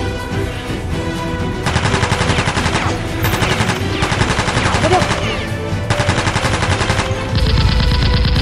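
Bursts of rapid automatic gunfire, three or four runs of about a second each, laid over a steady background music track.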